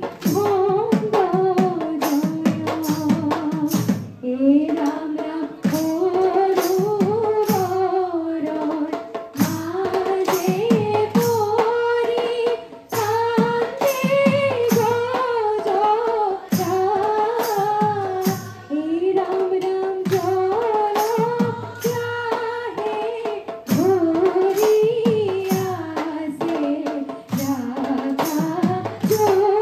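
A chorus of young women singing dihanam, Assamese devotional group song, together in a gliding, held melody while clapping their hands to a steady beat.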